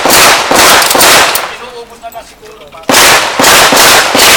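Firearm shots fired rapidly: a string of four shots about two a second, a pause of about a second and a half, then another four, each a loud crack with a short echoing tail.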